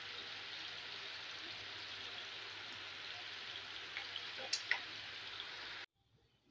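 Potato cubes frying in oil and tomato masala in a nonstick pan, a steady sizzle. A couple of light clicks come near the end, and then the sizzle cuts off suddenly.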